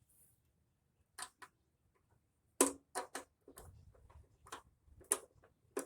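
Irregular sharp clicks and light knocks of small hardware being handled, as screws and a cable bracket are fitted to a car heater box. There are about eight clicks starting about a second in, some in quick pairs.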